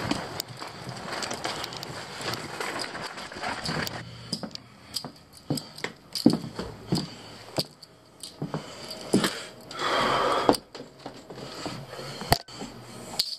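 Camera handling noise as it is carried indoors: rustling, with scattered knocks and clicks and a louder rustle about ten seconds in.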